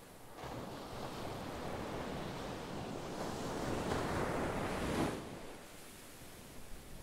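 A rushing noise, even and unpitched, that swells over about four seconds and falls away just after five seconds in.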